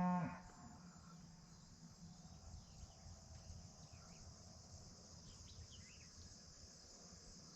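Steady, high-pitched chorus of insects chirping in a field, faint, with a few faint short chirps from other small creatures in the middle.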